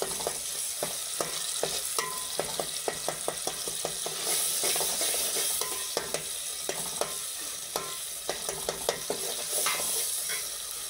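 Steel serving spoon stirring and scraping a frying sauce in a metal pot. The spoon clinks irregularly against the pot, several times a second, over a steady sizzle.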